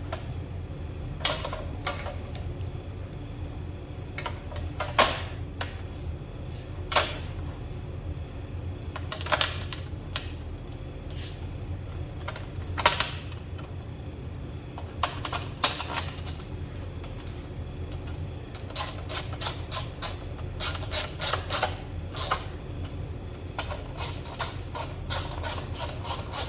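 Hand work on a radiator assembly: scattered sharp clicks and knocks of metal parts and tools being handled and fitted, then quick runs of rapid clicking in the second half.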